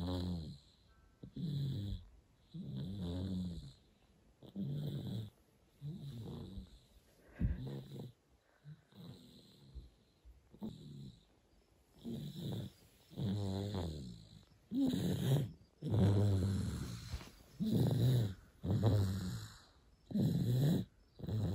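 A nine-month-old baby snoring in his sleep, one snore every second or so, louder in the second half. His nose is not blocked, and the parent puts the snoring down to dry air that calls for a humidifier.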